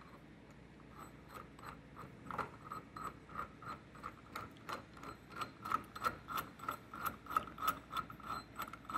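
The threaded forcing screw of a gear puller being turned down by hand, its threads ticking in an even rhythm of about three clicks a second. The clicks are faint at first and louder from about two seconds in.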